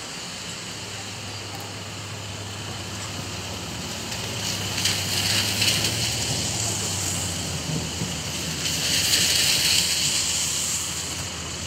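Heavy rain pouring steadily, swelling louder twice, about five seconds in and again about nine seconds in.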